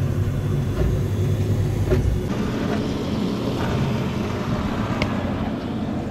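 Original Prusa 3D printer running a print: a steady mechanical hum from its stepper motors and fans, with a few light clicks.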